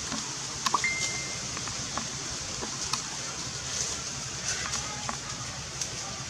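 Steady outdoor background hiss with a few faint clicks and one short, high, steady whistle-like note about a second in.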